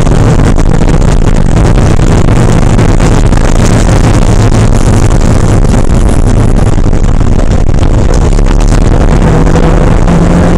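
Porsche 968's 3.0-litre four-cylinder engine running hard at racing speed, with heavy wind and road noise, recorded very loud. Its note climbs slightly near the end.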